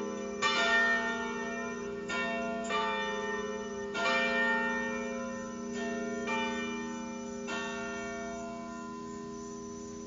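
Church tower bells pealing: several bells struck at uneven intervals, about seven strokes in all, with the strokes ceasing about three quarters of the way in and the bells' ringing then fading away.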